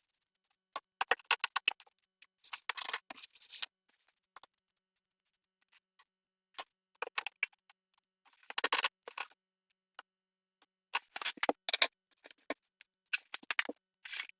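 Sink drain parts being handled and fitted under a bathroom vanity: scattered clicks and scraping rattles in short bursts, with quiet gaps between them.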